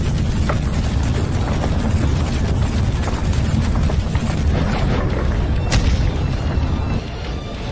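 Cartoon fight sound effects: a continuous deep rumbling of booms and blasts, with sharp impact cracks about half a second in and again near six seconds, easing a little near the end.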